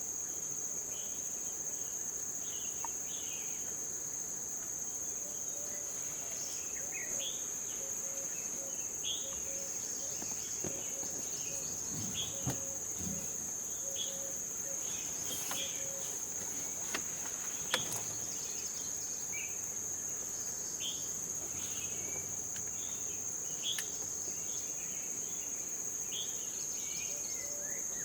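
Steady high-pitched drone of an insect chorus, with short bird chirps scattered through it and a couple of brief clicks about two-thirds of the way in.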